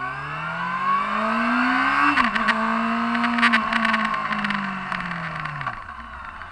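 Honda CBR600RR's inline-four engine heard from the rider's seat. The revs climb under acceleration, dip sharply about two seconds in, hold steady, then fall slowly as the bike slows. A spell of crackling clicks runs through the middle.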